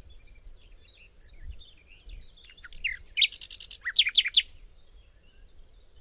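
Several birds chirping and whistling: short high chirps, a thin held whistle, quick downward-swept notes and a rapid trill about three seconds in.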